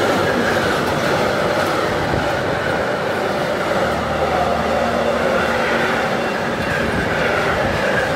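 Freight train of high-sided sliding-wall wagons rolling past close by: a steady, loud rumble of wheels on rail, with a wavering squeal from the wheels over it.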